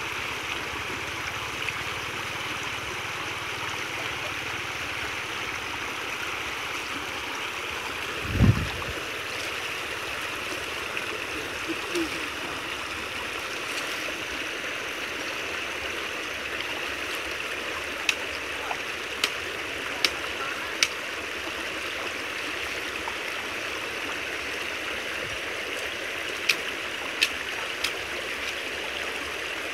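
Creek water rushing steadily through a narrow gap in a brush-and-earth dam, pouring past a bamboo cage trap. A dull low thump comes about eight seconds in, and a few sharp clicks come later.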